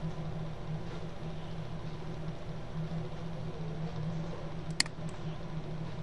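Steady low hum of background noise through a computer microphone, with one sharp mouse click nearly five seconds in.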